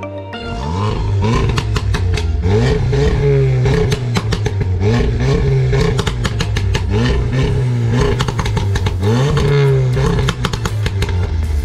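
Volkswagen Golf R's turbocharged four-cylinder engine being revved hard, blipped over and over so the revs rise and fall in quick succession, with sharp exhaust crackles and pops between blips.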